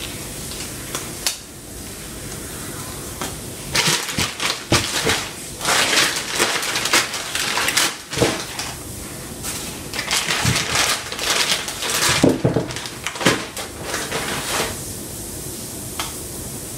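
Food prep at a kitchen counter: gloved hands crinkling and rustling something, with sharp knocks and clatters on a cutting board. The busy handling starts about four seconds in and dies down shortly before the end.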